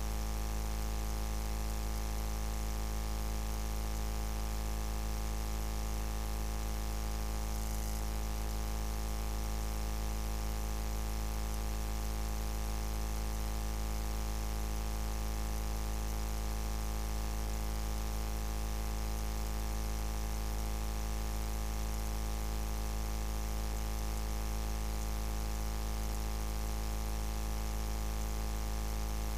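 Steady electrical buzz: a constant hum of several fixed tones that never changes.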